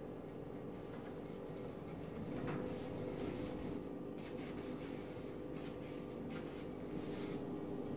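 Faint knocks and rubbing from handling wooden furniture, such as a chest of drawers being worked on, over a steady low hum.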